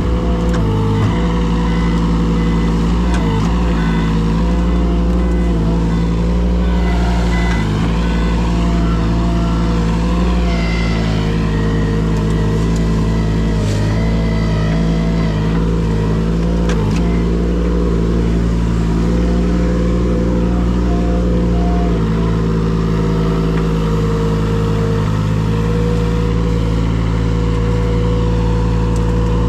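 A large engine running steadily at low speed, its pitch shifting slightly a few times.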